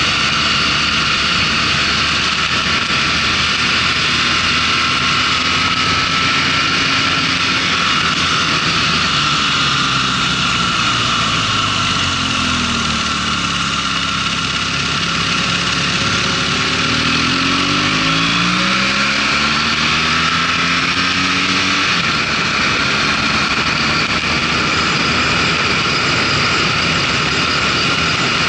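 Motorcycle engine running under way, with steady wind and road noise. About ten seconds in, the engine note falls as the bike slows. It then climbs again in a few rising sweeps as the bike accelerates hard through the gears.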